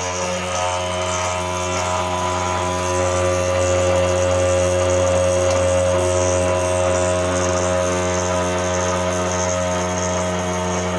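Arduino-controlled CNC machine running while it cuts plastic: a steady motor hum with several whining tones above it that shift slightly now and then as the machine moves.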